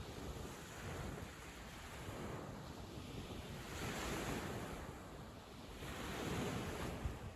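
Sea waves breaking and washing up a sandy beach, the surf swelling twice, about halfway through and again near the end.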